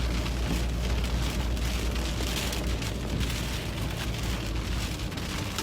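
Rain pelting a moving car's roof and windshield, heard from inside the cabin over the steady low rumble of the car on the road.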